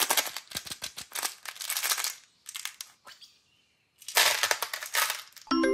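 Candy-coated chocolates rattling and clicking inside a clear plastic container as it is handled and opened, then clattering as they pour out onto a pile of candies in a plastic tub about four seconds in. A short pitched tone sounds near the end.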